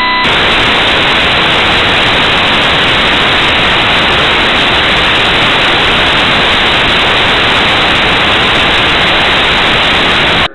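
Loud, steady static hiss with no other sound in it, as from a cheap recorder's audio track filled with noise. A brief high tone sounds right at the start, and the hiss drops out for an instant at the very end.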